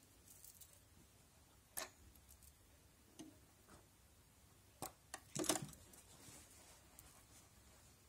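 Faint clicks and a light rustle of handling, not a running machine: a single click about two seconds in, then a short cluster of clicks just after the middle.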